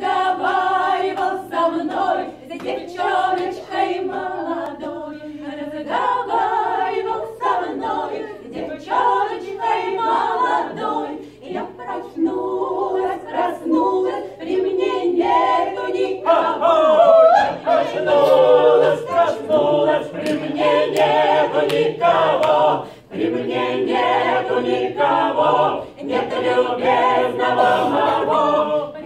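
A small mixed group of men's and women's voices singing a cappella together in parts, without instruments.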